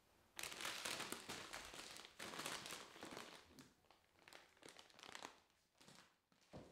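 Crinkling plastic packaging as a bag of rucola salad is picked up and handled off a wooden table, loudest in the first couple of seconds, then quieter scattered handling sounds.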